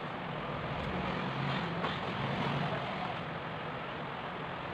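Steady background noise of road traffic, with a low vehicle hum swelling about a second in and easing off near three seconds.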